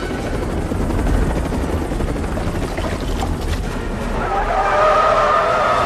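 Helicopter overhead, its rotor chopping and its engine running in a dense rumble. About four seconds in, wavering high tones come in over it.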